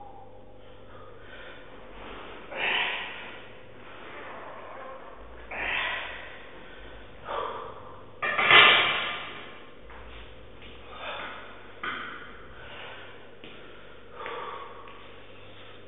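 A man breathing hard, with forceful, noisy exhales one to three seconds apart, while straining through a set of EZ-bar preacher curls. The loudest exhale comes about halfway through.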